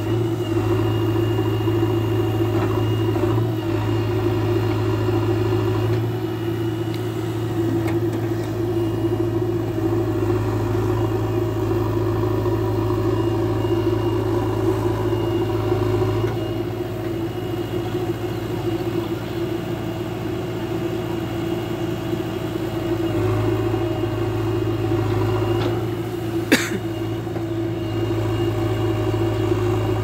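JCB 3DX backhoe loader's diesel engine running steadily under working load while the backhoe digs, its note shifting in strength several times as the hydraulics load it. One sharp knock sounds near the end.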